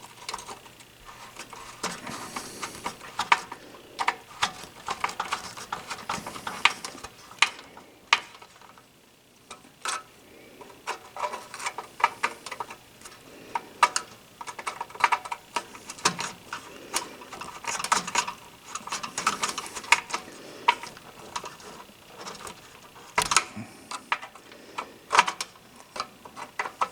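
Small metal parts and a hand tool being worked by hand: an irregular run of sharp clicks, ticks and light rattles, with a short lull about eight seconds in.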